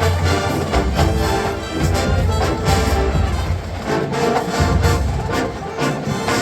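Marching band playing: massed brass holding chords over a steady drumline beat.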